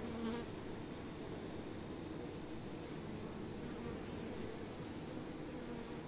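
Honey bees buzzing at a colony clustered on a branch: a steady low hum, with a single bee droning close by about a third of a second in. A steady high hiss runs underneath.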